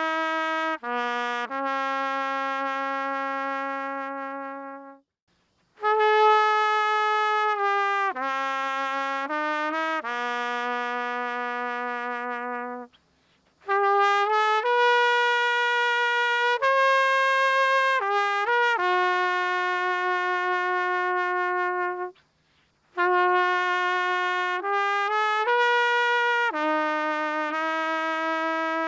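Solo trumpet, unaccompanied, playing a slow melody of long held notes in four phrases, with short pauses for breath between them.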